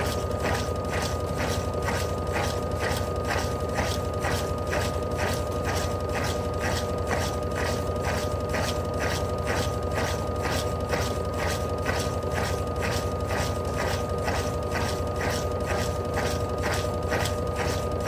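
Electrolux LAC09 top-loading washing machine running mid-cycle with its newly replaced mechanism: a steady motor hum with a fast, even clicking, several clicks a second.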